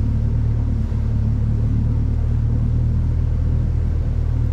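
A motor running steadily at constant speed: a loud, low, unchanging drone.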